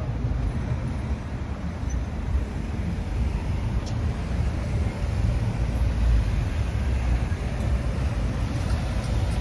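Steady low rumble of road traffic, with cars, vans and a double-decker bus driving past.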